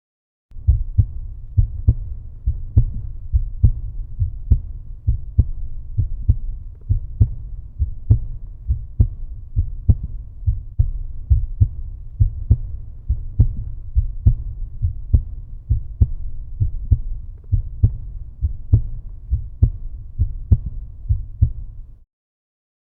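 Slow, steady heartbeat sound: a deep double thump (lub-dub) repeating a little over once a second. It starts about half a second in and cuts off abruptly near the end.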